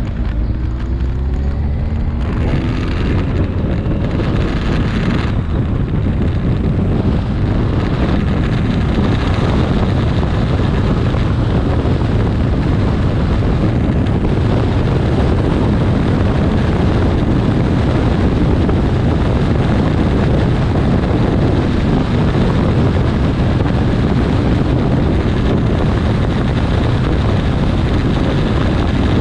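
Kawasaki 1400 Concours inline-four engine accelerating out of a turn, its pitch rising over the first few seconds. After that, heavy wind buffeting on the microphone covers the engine running steadily at road speed.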